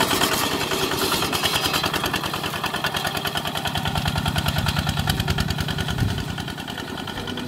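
Kubota ZT140 single-cylinder diesel engine on a two-wheel walking tractor, chugging steadily with a fast, even beat as it pulls cage wheels and a plough through paddy mud.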